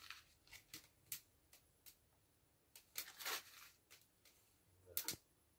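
Faint crackling of a fire just catching in a metal mangal grill, with paper rustling and tearing as pages are torn off to feed it. The tearing is loudest about three seconds in, with a shorter rustle near the end.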